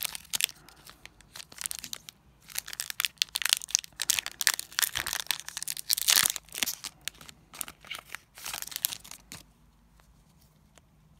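A Pokémon booster pack's foil wrapper being torn open and crinkled, in irregular bursts of crackling that die down near the end.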